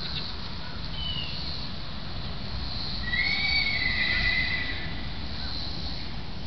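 A horse whinnying once, a drawn-out call about three seconds in that lasts roughly a second and a half, over a steady low outdoor rumble.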